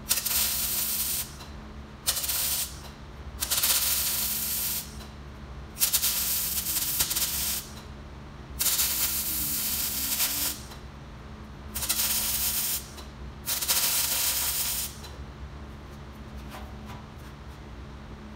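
Miller 252 MIG welder running .035 wire, laying short stitch welds on thin drum sheet steel: seven bursts of arc hiss, each half a second to two seconds long, with short pauses between. The runs are kept short to control the heat, because the thin barrel metal burns through easily.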